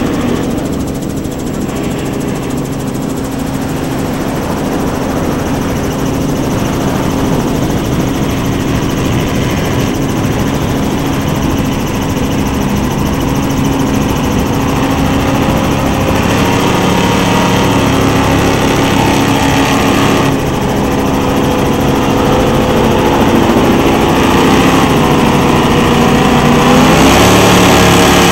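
Engines of Donzi 43 ZR and 38 ZR powerboats running hard at speed, a steady drone that climbs in pitch and grows louder over the last few seconds.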